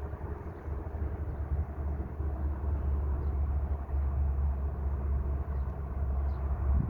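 Steady low rumble of vehicle noise in an outdoor field recording.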